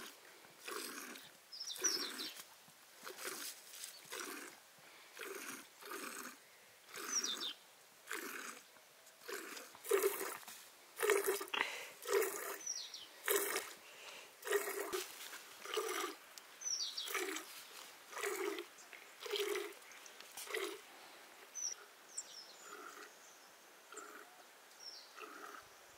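Rhythmic crunching strokes, about one every three-quarters of a second, loudest in the middle and fading near the end, with a few short high chirps over them.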